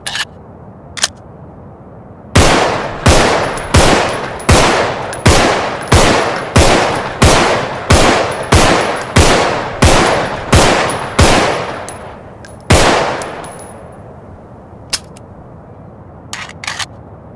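SIG Sauer pistol firing a steady string of about fourteen shots, roughly one and a half a second, each with a ringing echo, then one last shot after a short pause. A few sharp metallic clicks come before the shots and near the end.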